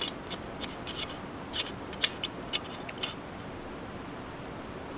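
A run of short, scratchy clicks and rubs, about a dozen in the first three seconds, over a steady background hiss.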